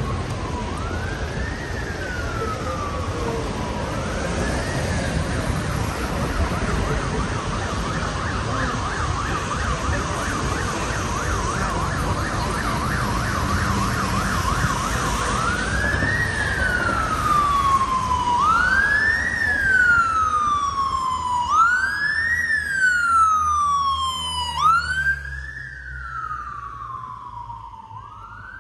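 Emergency vehicle siren: a slow wail that rises and falls about every two and a half seconds, switches to a rapid yelp for several seconds, then returns to the wail and grows louder before dropping away near the end. Low traffic noise runs underneath.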